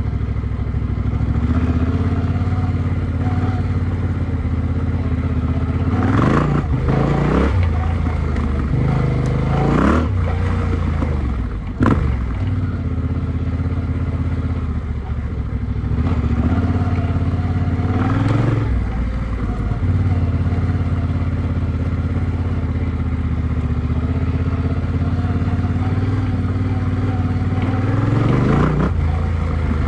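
Yamaha Ténéré 700's parallel-twin engine running through an Akrapovic exhaust, mostly holding steady revs, with the throttle opened and the revs climbing four times, the last near the end. A single sharp knock about twelve seconds in.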